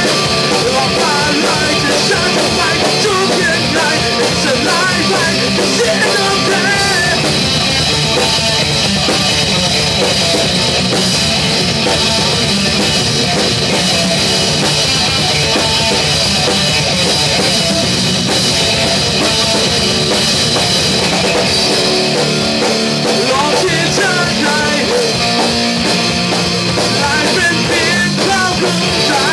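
Rock band playing loud: distorted electric guitar and a drum kit, with a man singing over them near the start and again near the end.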